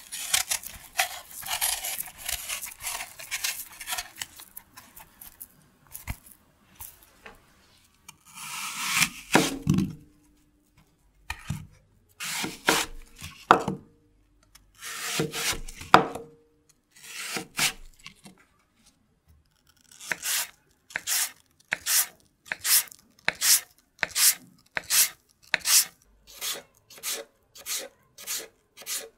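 Knife peeling a fresh apple, a dense continuous rasping, then a knife cutting through the peeled apple on a wooden cutting board in separate cuts with pauses. From about twenty seconds in, a steady run of thin slicing strokes, about one and a half a second.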